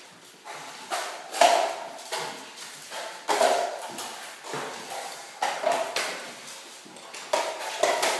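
Steel drywall taping knives scraping and clinking against metal mud pans and dragging joint compound across ceiling drywall. The strokes come irregularly, about one a second.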